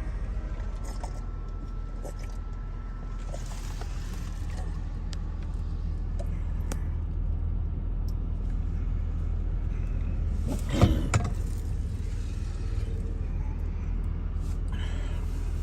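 Steady low hum of a car idling, heard from inside the cabin, with scattered small clicks and one short, loud knock-and-rustle about eleven seconds in.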